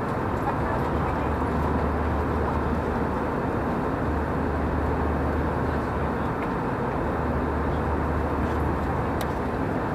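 Steady engine and airflow noise inside the cabin of an Airbus A320 airliner in flight, with a low hum underneath.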